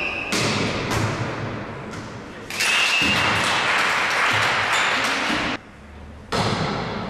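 Volleyball being struck in an echoing sports hall, with sharp hits. About two and a half seconds in, a short whistle, then a few seconds of shouting and cheering. The sound drops out abruptly for under a second before the hits resume.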